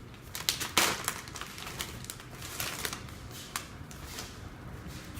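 Quinoa jalapeno cheddar puffs being bitten and chewed: a run of irregular crackling crunches, the loudest about a second in.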